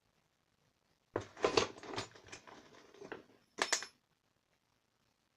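Metal hand tools clattering and clinking against each other as they are rummaged through and lifted out of an old tool box: a couple of seconds of rattling, then one sharp ringing clink.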